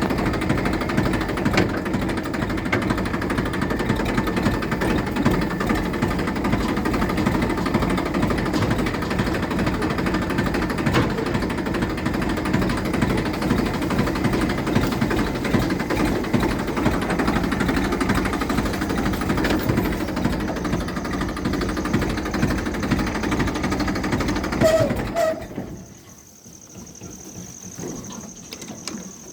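Heavy rain pattering hard and fast. It stops suddenly near the end, leaving a much quieter background with a faint steady high tone.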